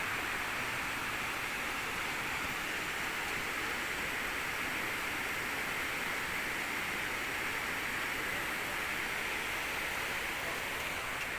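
Flowing water rushing steadily, an even hiss without change.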